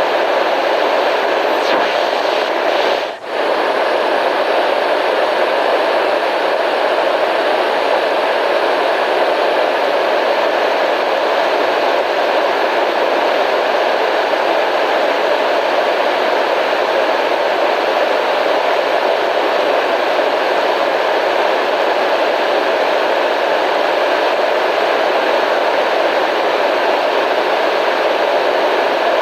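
Steady white noise, an even hiss with a brief dip in level about three seconds in.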